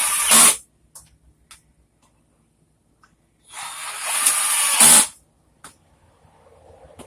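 Power drill driving bolts snug in a diagonal order: one run ends about half a second in, and a second run of about a second and a half starts around three and a half seconds in. Each run ends in a brief louder burst, with a few light clicks between the runs.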